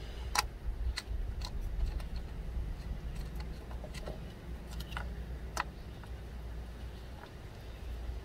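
Scattered light clicks and ticks of hands seating an ignition coil pack and starting its 10 mm bolt by hand, over a low steady rumble.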